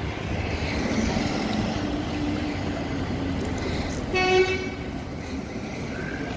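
A single short horn toot, about half a second long, a little after four seconds in, over steady street and traffic noise.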